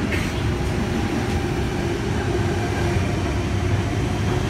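Passenger train running: a steady low rumble of rail and running noise.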